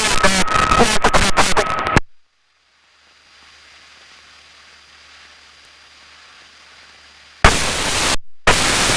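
Cockpit intercom audio: loud crackling static that cuts off suddenly about two seconds in, a few seconds of faint hiss, then a loud steady hiss of static that comes back near the end, broken by a brief dropout.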